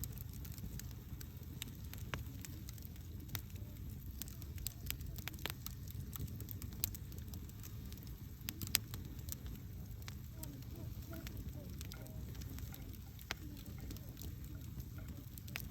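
Wood fire burning, with a steady low rumble of flames and frequent sharp crackles and pops; two pops near the middle stand out as louder.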